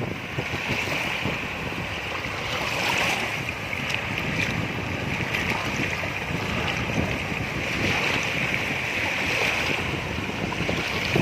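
Wind buffeting the microphone over storm-driven waves washing onto a sandy shore, swelling and easing every few seconds.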